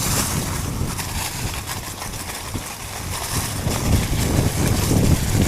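Wind buffeting the microphone during a mountain-bike ride, a steady low rumble with scattered knocks and rattles from the bike over the trail.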